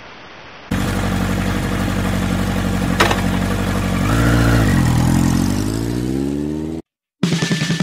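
A motor running steadily, its pitch dropping and rising again about four to five seconds in, with a sharp click about three seconds in; it cuts off suddenly near the end.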